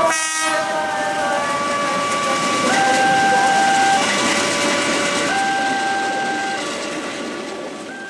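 KRL Commuter Line electric train's horn sounding a long alternating two-tone call, switching between a higher and a lower note about every second and a half over the running noise of the train. It fades over the last couple of seconds.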